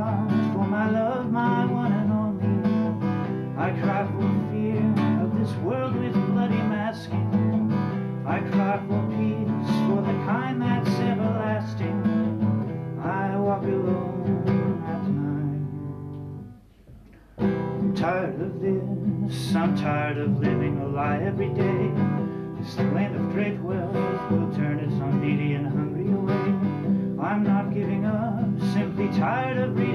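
Steel-string acoustic guitar played solo, a folk song in chords with ringing notes. About halfway through the playing fades almost to silence for a moment, then the guitar comes back in suddenly.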